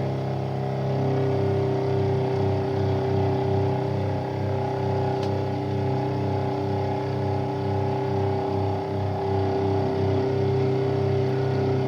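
Milling head on a lathe running a conical cutter through the last pass on the ratchet of a Nagant revolver cylinder: a steady motor hum with a regular low pulsing about three times a second.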